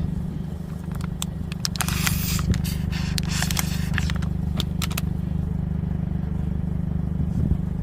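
Soapy water being applied to a plugged tire to check it for air leaks: scattered clicks and scraping, with two short hisses about two and three-and-a-half seconds in. A steady low hum runs underneath.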